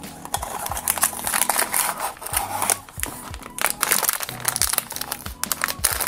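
Metallic foil blind-box bag crinkling and rustling as it is pulled from its cardboard box and handled, with background music underneath.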